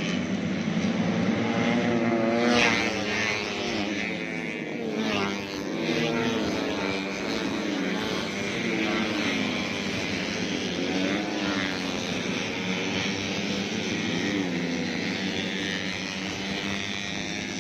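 Several tuned 130cc four-stroke underbone racing motorcycles at high revs, their overlapping engine notes sliding up and down in pitch, loudest about two to three seconds in.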